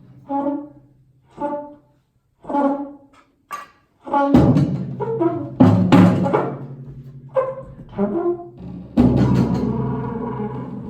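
Improvised trombone and percussion music: a few short, separate pitched notes at first, then from about four seconds in a louder, denser passage of low held tones with sharp struck hits.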